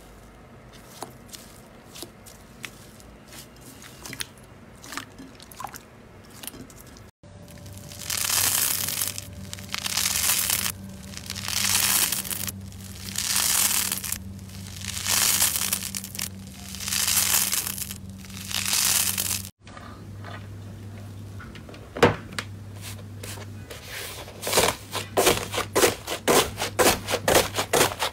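Hands working textured slimes: first faint scattered crackles as a hand presses into slime coated in white granules, then about six long tearing, crackling swells, one every second and a half or so, as a stiff honeycomb slime is pulled apart. Near the end come quick crunchy crackles, several a second, as crumbly chunks of slime are pressed.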